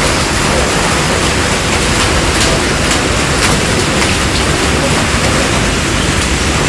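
A mass of live fish and water pouring down a stainless-steel unloading chute: a steady, loud rushing splash, with a few sharp ticks over it.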